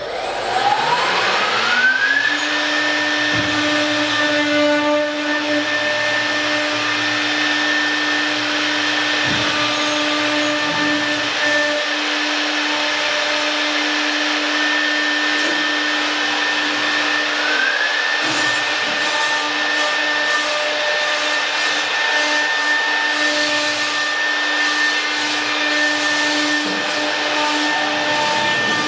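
Router spindle of a wood door-panel machining machine spinning up with a rising whine over the first two seconds, then running at a steady high whine over a rushing noise while it machines the wooden panel. Around eighteen seconds in the pitch briefly dips and climbs back.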